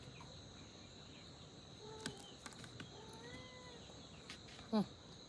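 Steady high insect chirring, with a few faint short pitched calls around the middle and one louder, short call falling in pitch near the end.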